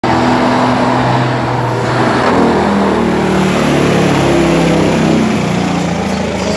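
Diesel engine of a Kenworth T800 tractor pulling a heavy crane load as it passes close by. It runs at a steady pitch at first, then from about two seconds in its pitch rises and falls as it pulls past under load.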